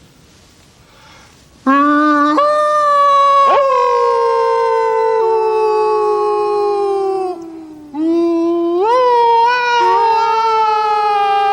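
Two men howling together in imitation of wolves, calling to a wild wolf pack. There are two long howls: the first starts about two seconds in, leaps up in pitch and slowly sags. After a short break the second rises and slowly falls, with a second voice joining partway through.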